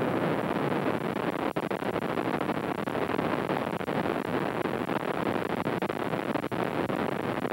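Steady noise of a helicopter in flight, heard from inside the cabin, with two brief dropouts.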